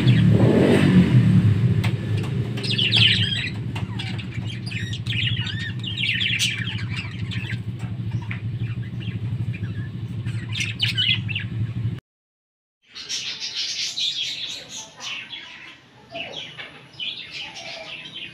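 Budgerigars chirping and twittering over a steady low hum that is loudest at first and eases after a couple of seconds. About twelve seconds in the sound cuts out for a moment, then lighter bird chirps resume.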